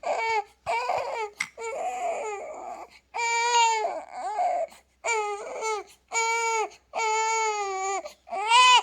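Four-week-old newborn crying in a string of about eight short, high-pitched wails with brief breaths between them, the loudest near the end. The crying comes while the feed is paused for burping, as the baby wants to keep eating.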